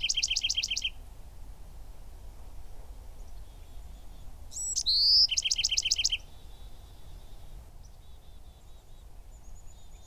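Bewick's wren singing. A fast trill finishes just after the start. About four and a half seconds in a full song follows: a high slurred note, a rising whistle, then a rapid trill of repeated notes lasting under a second.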